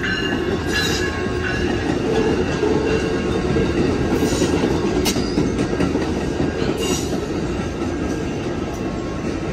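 Amtrak San Joaquins passenger train of bilevel coaches rolling slowly past as it pulls into the station: a steady rumble of steel wheels on rail, with a few brief high squeals from the wheels.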